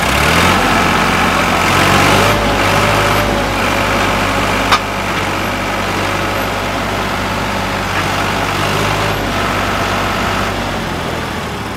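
Diesel tractor engine revving up and then running steadily under load as it tries to pull out of the ground where it is stuck. One sharp click about five seconds in.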